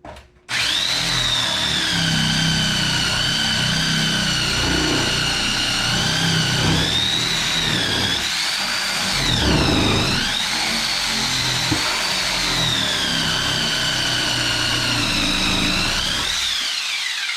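Electric power saw running continuously while cutting through the heater core lines. Its motor whine sags in pitch several times under load, most deeply about ten seconds in, then winds down near the end. The blade is dull.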